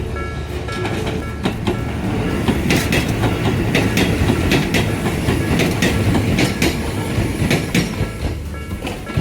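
Hakone Tozan Railway electric train running past, a low rumble with irregular sharp clacks of its wheels over rail joints, growing louder and then easing off near the end. Background music fades out about a second in.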